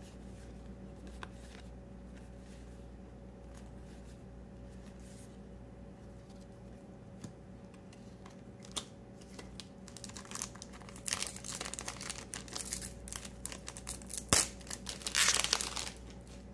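Trading cards being flipped and sorted by hand: soft slides and taps at first, then several seconds of louder crinkling and rustling with one sharp snap near the end.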